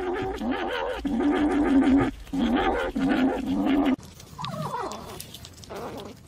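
A cat growling in several long, wavering stretches over about four seconds while it bites into food, then the sound drops much quieter.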